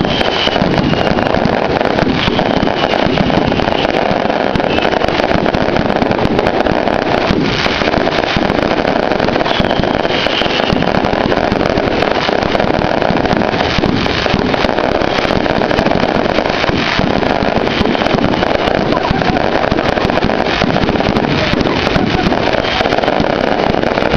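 Large bonfire burning, a steady loud rush of flame with dense crackling throughout.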